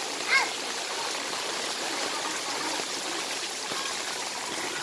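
Steady hiss of rain falling on a flooded alley and shallow floodwater running. A child's voice calls out briefly just after the start.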